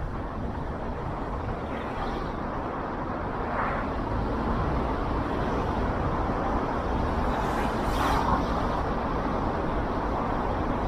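Steady road and traffic noise from a car driving in city traffic: a constant rumble of tyres and engine, with a brief hiss about eight seconds in.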